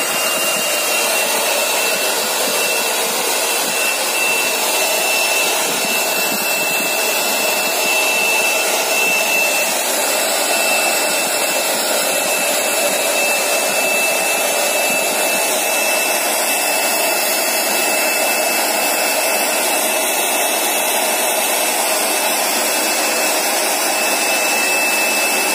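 Handheld hair dryer running steadily, with a constant high whine over the rush of air, blowing a freshly bathed cat's wet fur dry.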